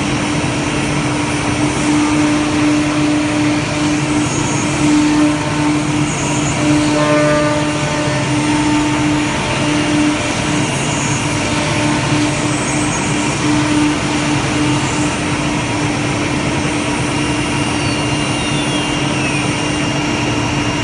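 ATC CNC wood router's spindle cutting letters into a wooden board: a loud, steady run of spindle whine and cutting noise, with a low hum that keeps breaking on and off.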